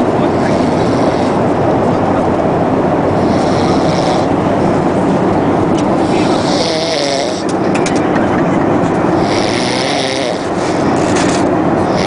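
A man snoring in his sleep, a breath about every three seconds, over the steady drone of an airliner cabin.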